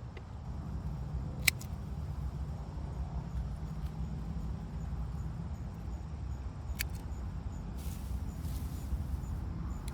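Carrot tops being cut off by hand: two sharp clicks about five seconds apart and a brief rustle near the end, over a steady low rumble.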